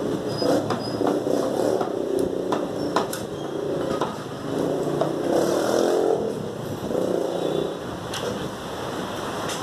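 A cleaver knocking through mutton onto a wooden chopping block, a few sharp chops standing out, the strongest about three seconds in. A steady engine-like drone of motor traffic runs underneath and is the loudest sound throughout.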